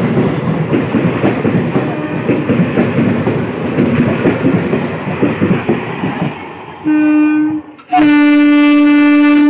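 An Indian Railways EMU local train runs past close by, its wheels clattering and rumbling on the rails and then fading. Near the end a train horn sounds: one short blast, then a long steady one.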